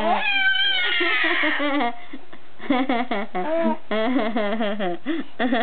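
Baby squealing: a long high-pitched cry that falls in pitch, followed by a string of short sing-song voice sounds.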